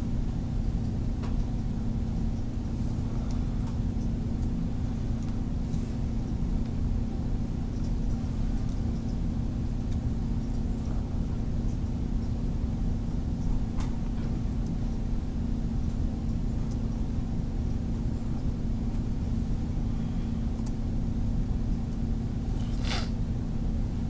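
Steady low droning hum with no change in level, with a few faint clicks and a sharper click near the end.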